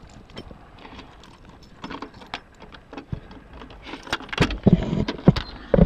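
Clicks, rattles and knocks from opening a vehicle door and climbing into the cab, with several louder thumps in the last two seconds.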